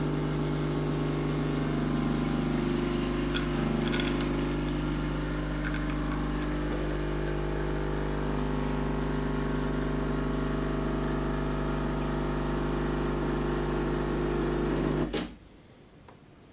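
Krups Nescafé Dolce Gusto capsule coffee machine's vibratory pump humming steadily as it forces hot water through an espresso capsule, brewing into the cup; the hum cuts off suddenly about 15 seconds in when the brew is done.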